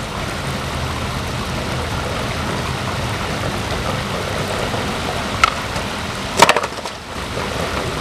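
Steady rushing noise of a stream of running water, with a short click about five seconds in and a sharp, loud clack of a skateboard a second later.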